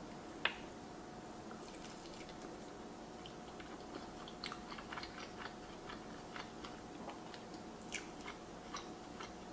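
Mouth biting into a piece of pepperoni pizza with a sharp click about half a second in, then faint chewing with scattered small clicks.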